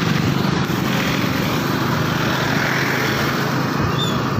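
Steady engine and wind noise from riding a motorbike or scooter along a rain-wet road, with a short high chirp about four seconds in.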